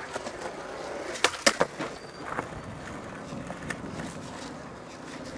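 Skateboard wheels rolling on concrete, with a few sharp clacks from the board. The loudest are a quick cluster about a second and a half in.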